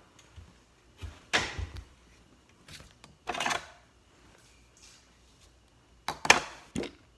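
Three spells of short knocks and rustles, about a second in, at three seconds and near the end, as small plastic slime-kit items are handled and moved aside while someone rummages for a container lid.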